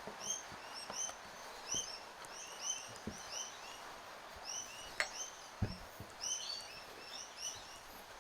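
Birds chirping: many short high calls repeated in quick succession. A sharp click comes about five seconds in, with a few soft knocks.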